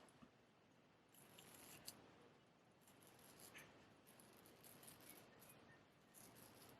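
Faint scraping of a straight razor cutting through stubble, in a series of short strokes.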